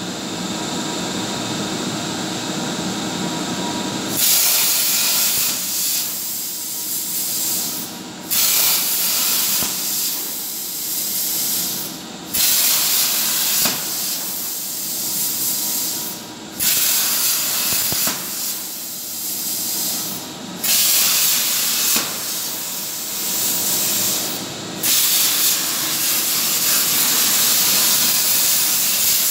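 CNC plasma cutter with a Powermax105 torch cutting steel plate: a loud, steady hiss of the plasma arc. It starts about four seconds in, after a steadier machine hum, and breaks off briefly about every four seconds.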